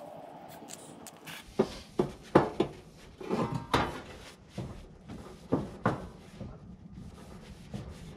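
A grill's side table knocking and clunking irregularly as it is handled and wiped down with a wet shop rag, with some rubbing between the knocks.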